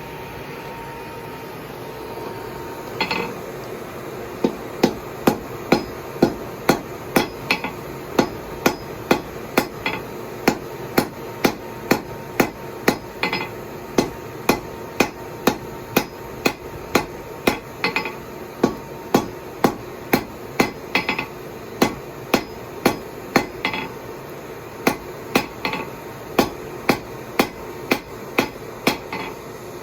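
Hand hammer striking hot steel on an anvil in a steady run of about two blows a second, with a short pause near the end: forge-welding a fluxed seam in the steel.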